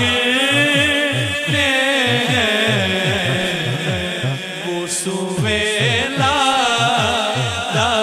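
A man singing a naat into a microphone in long, ornamented sliding phrases, over a low repeating beat. The singing breaks off briefly about five seconds in.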